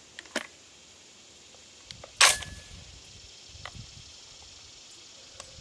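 Shells being loaded into an SDS Titan 12-gauge semi-automatic shotgun: a couple of small clicks, then one loud metallic clack of the action with a brief ring about two seconds in, and a few faint clicks after.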